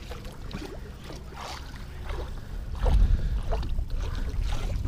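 Wind rumbling on the microphone with water lapping at the boat's hull; the rumble grows louder about three seconds in.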